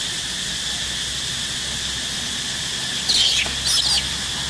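Young macaque squealing twice in quick succession about three seconds in, high-pitched and short, during rough play-wrestling. A steady high insect drone runs underneath.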